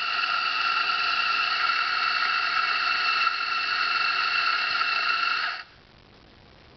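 Electric coffee grinder running with a steady high-pitched whine as it grinds into the portafilter, cutting off suddenly about five and a half seconds in.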